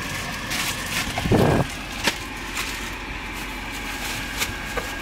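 Steady low drone of the river ferry's engine, with kitchen handling noises over it: a few sharp clicks and one dull thump about one and a half seconds in.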